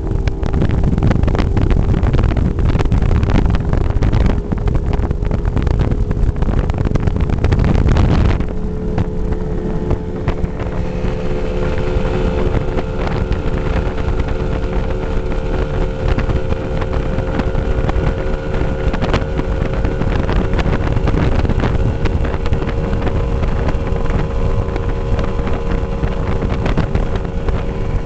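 Mercury OptiMax 300XS V6 two-stroke outboard running at high speed on a tunnel-hull speedboat, a steady engine note that slowly climbs in pitch. Heavy wind buffets the microphone for the first eight seconds or so, then suddenly eases.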